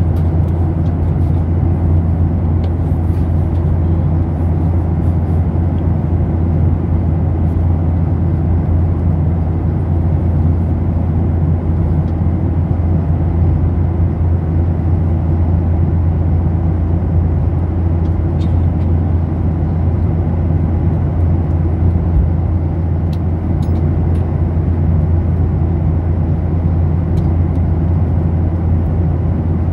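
Steady low rumble of an airliner cabin in flight: engine and airflow noise holding an even level.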